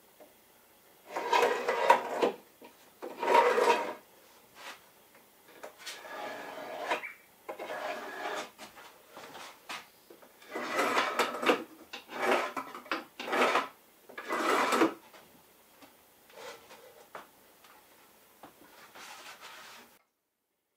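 Wood rubbing and scraping against wood in about ten separate strokes of a second or so each, with short pauses between: a wooden piece being worked back and forth in a wooden window frame.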